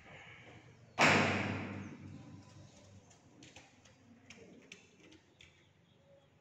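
A single loud bang about a second in that rings on in the room for about a second, followed by a few faint clicks and taps.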